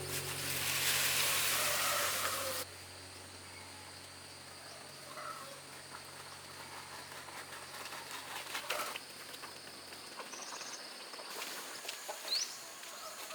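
A loud rushing hiss for the first two and a half seconds, then quiet outdoor ambience with a low steady hum that stops about ten seconds in. A few short rising bird chirps come near the end.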